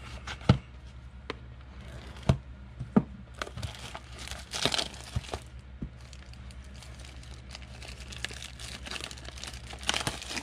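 Plastic shrink wrap on a 2019 Donruss football blaster box of trading cards crinkling and tearing as it is handled and unwrapped, with a few sharp knocks and clicks from the cardboard box early on and the crinkling heaviest about halfway through and again near the end.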